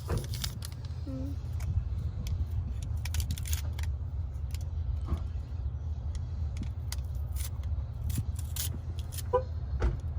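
Plastic toy packaging being handled and opened, with irregular clicks, crackles and scrapes. A steady low hum runs underneath.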